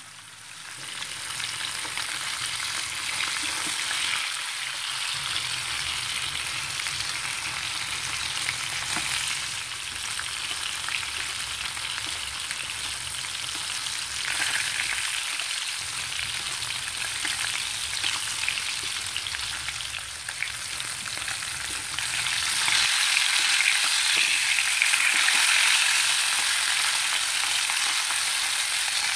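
Rohu fish steaks sizzling as they shallow-fry in hot oil in a pan, a steady crackling hiss. It grows louder over the last several seconds, as the pieces are being turned over.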